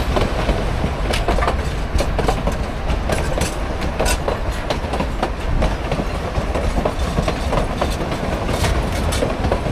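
Narrow-gauge work train rolling past at slow speed: a steady low rumble with irregular clicks and clanks of wheels over the rail.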